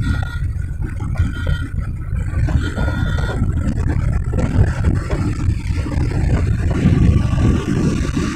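Wind rumbling irregularly on the microphone of a moving motorcycle, over road and tyre noise on a wet road.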